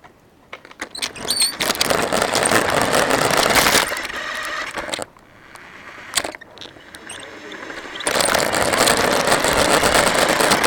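Radio-controlled car driving, heard from the camera mounted on it: a dense rattling noise of motor and wheels that starts about a second in, drops away about five seconds in, and starts again about eight seconds in.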